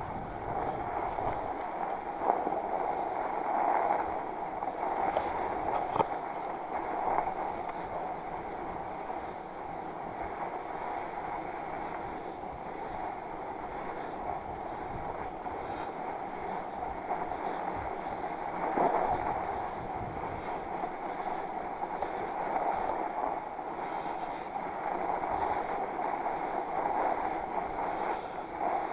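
Steady rolling noise of a Northrock XC00 fat bike's wide tires on snow, mixed with wind on the microphone, with a couple of sharp knocks from bumps.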